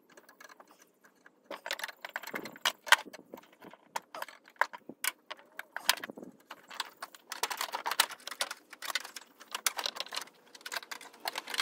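Irregular metallic clinks and rattles of hand tools and metal fittings as AC lines are unbolted and worked loose in a truck's engine bay.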